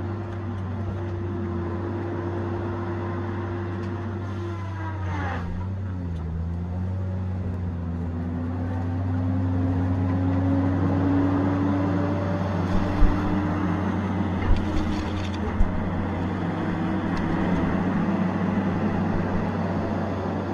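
Tigercat 870C feller buncher's diesel engine and hydraulics running under work. The pitch dips sharply about five seconds in and climbs back over the next several seconds, and a few sharp knocks come about two-thirds of the way through.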